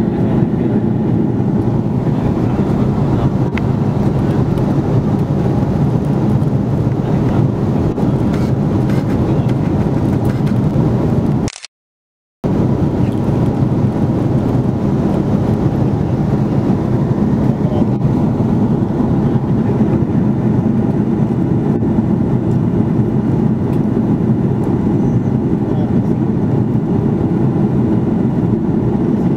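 Steady, loud cabin drone of an Airbus A330-300, engine and airflow noise heard from a seat in the rear cabin. It cuts out abruptly for about a second a little before the middle and resumes unchanged.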